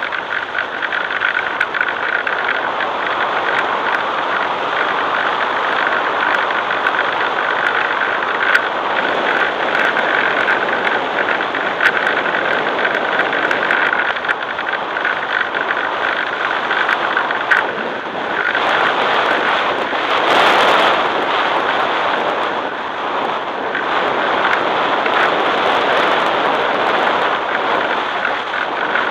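A model airplane's motor and propeller running steadily in flight, heard from the onboard camera: a constant whine over a rush of air and wind noise. The rush grows louder for a moment about 20 seconds in.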